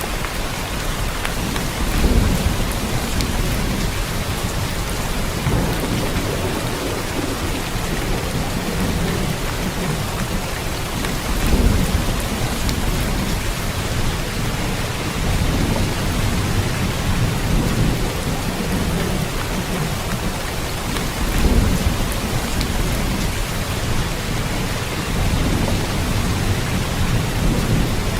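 Steady, dense rain falling. Low rumbles swell up about every ten seconds.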